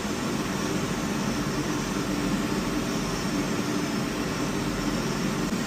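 Boiler burner running steadily at low firing rate, about 22% load under automatic control: an even rushing noise of flame and blower with a faint low hum.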